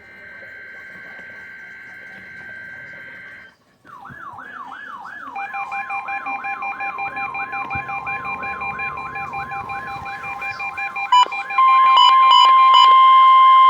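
NOAA Weather Radio test signal. It opens with a screeching burst of SAME digital header data. After a short gap comes a warbling siren-like alert that sweeps about three times a second over steady tones. About eleven and a half seconds in, the loud steady 1050 Hz warning alarm tone comes in.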